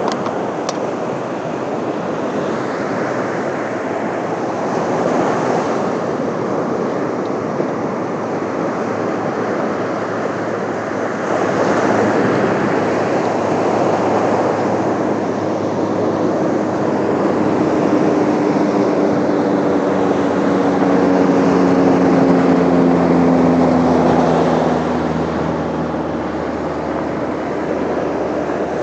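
Steady rushing noise, with an engine drone that comes in about halfway, slowly drops in pitch and fades out near the end.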